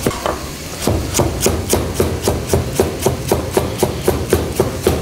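Chef's knife slicing carrots thinly on a plastic cutting board: a steady run of sharp chopping taps, about four a second, settling into its rhythm about a second in.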